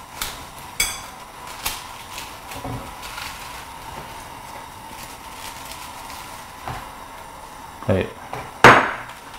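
Kitchen handling sounds: scattered light clicks and knocks as cut napa cabbage pieces go into a ceramic bowl and the bowl is handled beside a bamboo cutting board, with two sharper knocks near the end. A faint steady high whine runs underneath.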